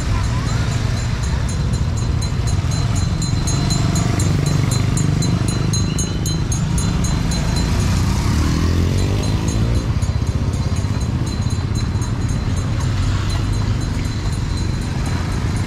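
Street traffic dominated by motorbike engines running close by, with one engine rising in pitch as it speeds up about eight seconds in.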